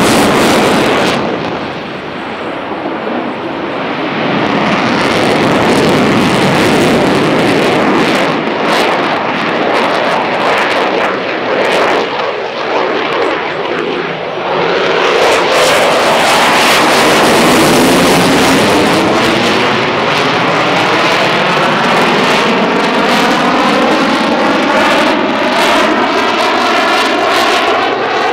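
Eurofighter Typhoon's twin EJ200 jet engines at display power, loud throughout, with a dip in loudness about two seconds in and a sweeping, rising tone over the last several seconds as the jet passes.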